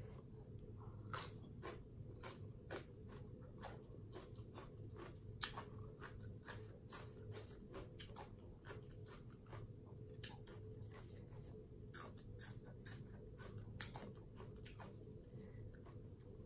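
Close-miked chewing of papaya salad and noodles: soft, irregular wet mouth clicks and crunches, with one sharper click about fourteen seconds in, over a faint steady hum.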